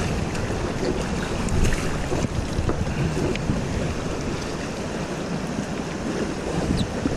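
Fast river water running through rapids: a steady rushing wash, with wind buffeting the microphone.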